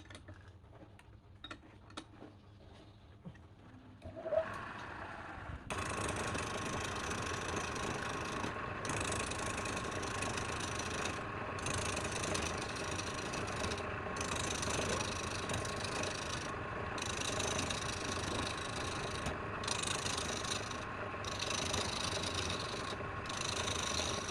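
A few light clicks, then about five seconds in a wood lathe starts running with a steady hum and a fixed whine. A tool rasps against the spinning wood in long strokes, its hiss breaking off briefly every two or three seconds.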